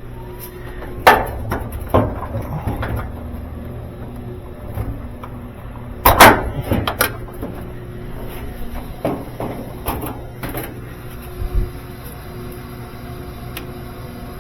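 Knocks and clunks of a GE dryer's sheet-metal cabinet being worked open and handled: several sharp knocks, the loudest about six seconds in.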